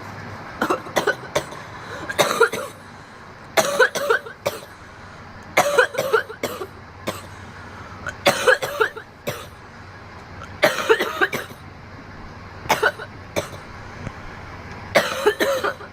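A girl coughing hard after a bong hit: harsh coughs in repeated fits, a cluster of several coughs about every two seconds.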